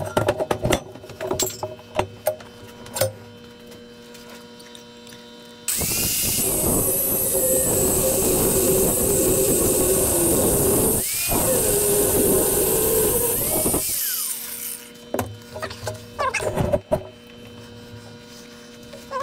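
Angle grinder with a cutting disc slicing through steel rectangular tubing held in a vise. It comes in about six seconds in, runs loud for about eight seconds with a short break near the middle, and then stops. Separate clanks and knocks of the steel being handled come before and after the cut.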